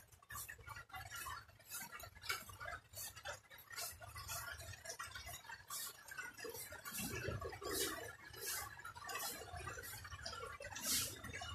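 Yard broom sweeping leaves and debris over the ground in quick, even swishing strokes, roughly two a second.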